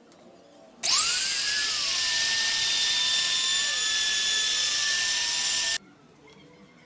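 Trim router switched on: its motor spins up with a quick rising whine about a second in, then runs at full speed with a steady high-pitched whine that cuts off suddenly near six seconds.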